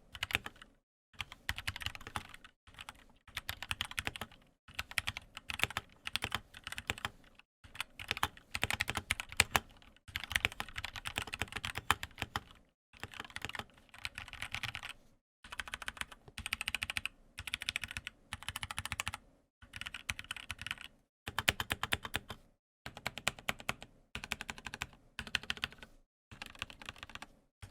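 Typing on a custom MZ60 61-key mechanical keyboard with Gateron Milk Black linear switches, a foam-modded case and band-aid-modded stabilizers: rapid keystrokes in runs of a second or two, broken by short pauses.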